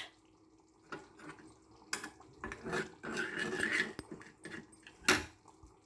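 Steel spoon stirring garlic-ginger paste into hot ghee in a small non-stick frying pan, with two sharp clinks of the spoon against the pan, about two seconds in and louder near the end. A rough, rasping sound runs between them.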